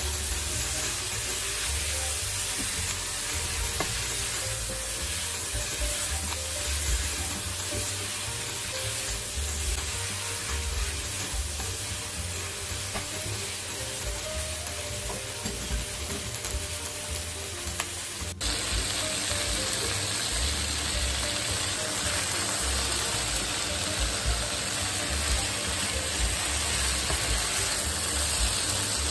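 Fish fillet pieces, green pepper and onion sizzling in a hot wok while being stirred and turned with a spatula. There is a sudden cut about two-thirds of the way through, after which the sizzling carries on.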